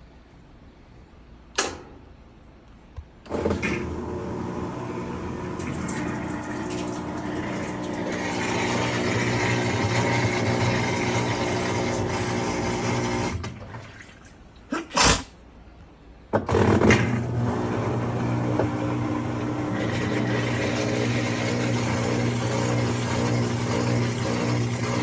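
Maytag Centennial washing machine running, with a steady hum and a hiss of water in the mid and high range, typical of the machine filling. It stops after about ten seconds and starts again a few seconds later, each start marked by a sharp click.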